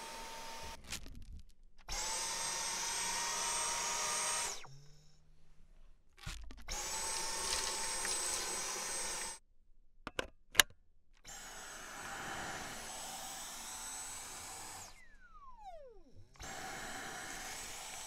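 Dyson Cyclone V10 cordless stick vacuum running in several separate stretches: a steady rush of air with a thin high whine, each stretch cutting off abruptly. A sharp click comes a little past halfway, and a whine falls in pitch about three-quarters through.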